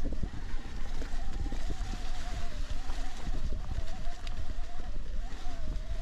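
Electric mountain bike's mid-drive motor whining steadily, its pitch wavering slightly. Under it runs a low rumble of tyres rolling over a leaf-covered dirt trail, with wind on the microphone and small knocks from the bike.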